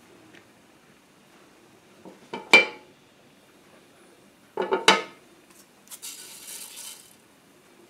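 A utensil clattering against a Copper Chef square nonstick pan in two short bursts, the first the loudest. About six seconds in comes a dry patter of a dry seasoning shaken into the pan for about a second.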